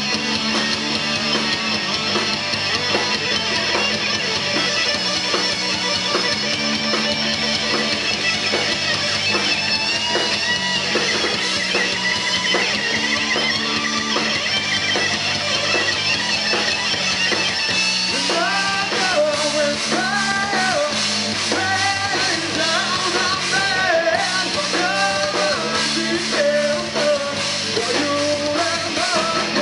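Rock band playing live: electric guitars, bass guitar and drum kit at full volume, with a lead vocal joining in about two-thirds of the way through.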